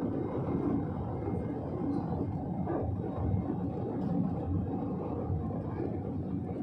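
Cabin noise of an Airbus A320-family jet climbing just after liftoff, heard from inside over the wing: the engines at takeoff thrust make a steady low rumble.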